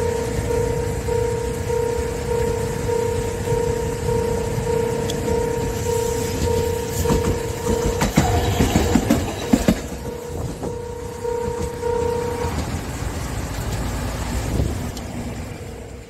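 Level-crossing alarm sounding its deep, pulsing 'bon-bon-bon' tone, which carries far. A green Kagoshima City Tram car runs over the crossing about seven to ten seconds in, its wheels clattering and knocking over the rails. The alarm stops about twelve seconds in, once the tram has cleared.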